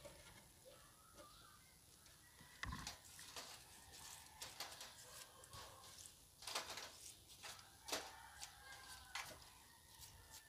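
Faint, irregular crisp crunches and rustles of rabbits eating a bundle of fresh para grass.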